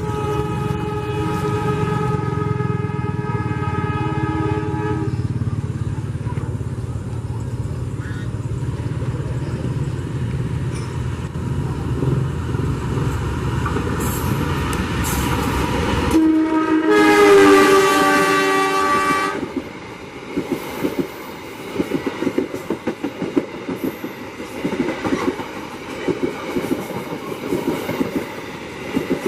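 KAI CC 203 diesel locomotive sounding its multi-tone horn for about five seconds over the low rumble of its engine as it approaches. About two-thirds of the way through a second, louder horn blast lasts about three seconds. Then passenger coaches pass close by with a rapid clickety-clack of wheels over rail joints.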